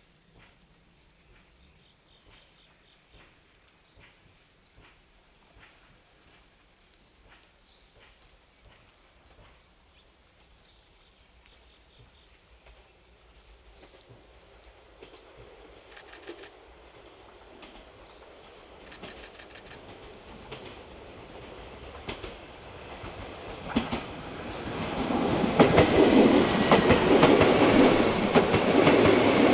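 Izukyu 8000 series electric train approaching, its wheels clicking over the rail joints faintly at first, then growing steadily louder until it is passing close by and loud over the last few seconds.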